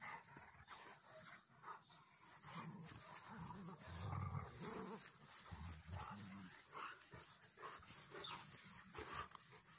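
Adult Rottweiler and Rottweiler puppy tugging on a chew toy in play, with panting and several spells of low growling.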